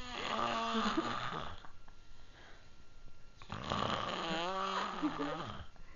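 A person snoring: two long snores with a wavering pitch, about two seconds each, roughly three seconds apart.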